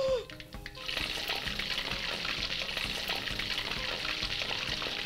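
Half a chicken frying in a wok of hot oil. A steady, bubbling sizzle starts about a second in, as the chicken goes into the oil.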